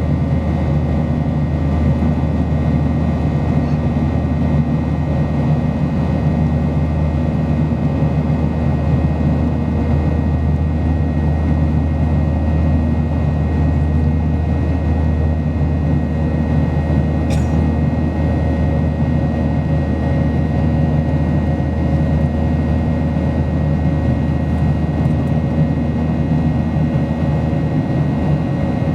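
Boeing 737-800's CFM56 engines heard inside the cabin: a steady, loud low drone with several fixed whining tones above it, unchanging throughout. A brief faint high chirp sounds once near the middle.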